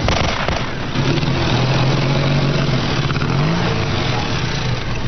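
Motorcycle-and-sidecar engine running at a steady note, then revving up about three and a half seconds in as it pulls away.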